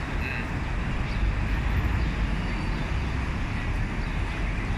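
Steady low outdoor rumble of background noise, even throughout.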